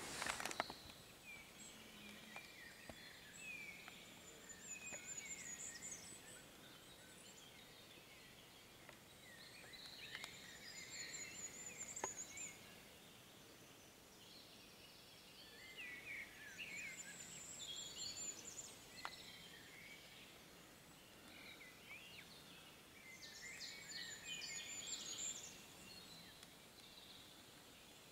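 Faint songbird singing outdoors: phrases of quick chirps and warbles a few seconds long, repeated about every six or seven seconds, with a thin high trill alongside. There is a brief knock right at the start.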